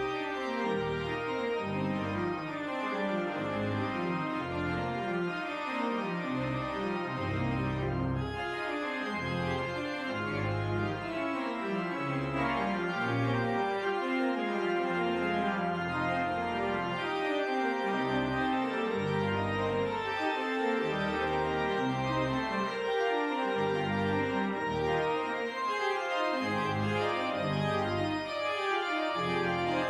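Organ playing the postlude: sustained full chords over a bass line that moves note by note.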